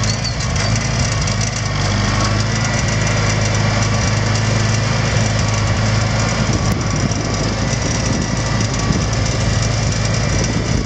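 International Harvester Cub Lo-Boy tractor's small four-cylinder petrol engine running steadily at low speed while the tractor drives along.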